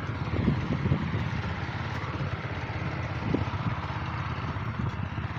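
A small engine running steadily, with an even fast low beat.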